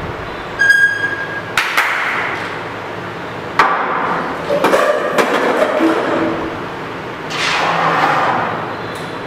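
Chairs and furniture being moved on a hard floor: a short high squeak about a second in, then sharp knocks and a run of smaller bumps, and a longer scraping rush near the end.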